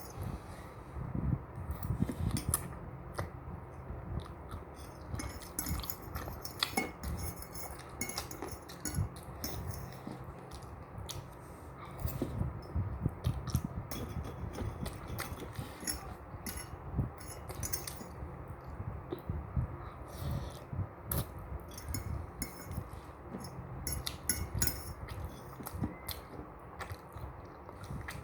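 Someone eating spicy instant noodles close to the microphone: chewing, with many irregular small clicks and clinks of utensils against the bowl.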